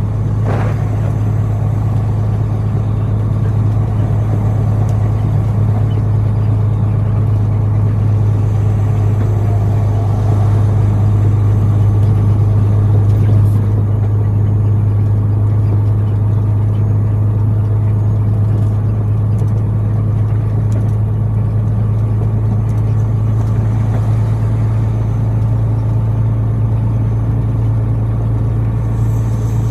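Truck engine running steadily while driving, a deep even drone with no change in pitch.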